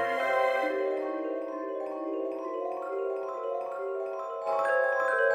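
Background music: a melody of short, evenly stepped notes on mallet percussion, getting louder near the end.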